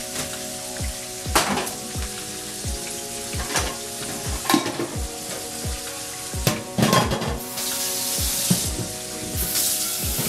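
Food sizzling as it fries in a skillet on an electric stove, the sizzle growing louder in the second half, with a few sharp clatters of utensils and pans. Background music with a steady beat plays underneath.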